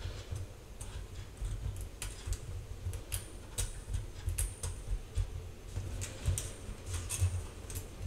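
Irregular small clicks and ticks as a metal zipper pull is worked onto continuous zipper tape by hand in a metal tea towel holder, with low handling thumps underneath. The tape is being backed out and re-fed to line up both sides evenly.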